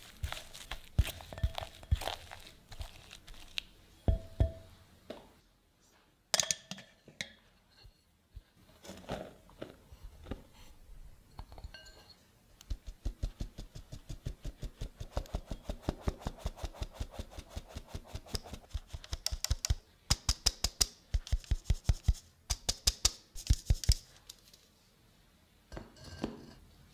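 A spatula scraping and pressing soft butter-sugar dough in a glass bowl. After about half the time, a metal mesh sieve being tapped over the bowl to sift flour: a long run of rapid, even taps that stops shortly before the end.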